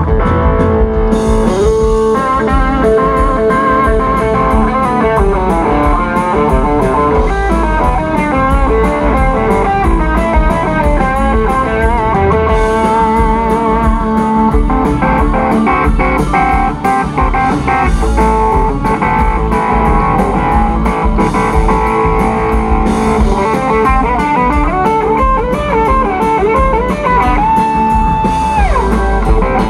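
Live rock band with an electric guitar playing a lead solo of held, bending notes over a steady drum beat; near the end one long held note slides down.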